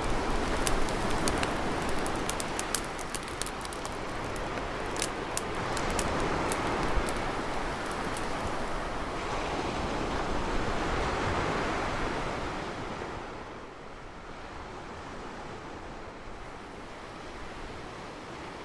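Fire crackling with sharp pops over a rushing background for the first several seconds, then ocean surf washing in, swelling twice before settling to a lower, steady wash.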